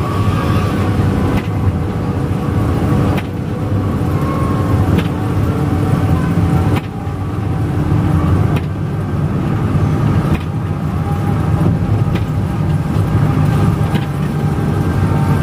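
Steady low drone of a coach's engine and tyres on a wet road, heard from inside the bus cabin. Faint ticks recur about every two seconds.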